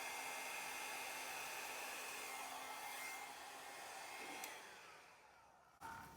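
Hair dryer blowing steadily with a thin whine, used to blow acrylic paint across a canvas in a Dutch pour. A click about four and a half seconds in, after which the airflow winds down and fades.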